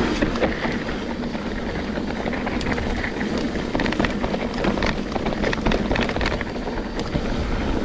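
Trek Slash 9.8 full-suspension mountain bike riding a dirt trail: a steady rush of wind on the action camera's microphone and tyres on dirt, with frequent rattling clicks and knocks from the bike's chain and frame over the bumps.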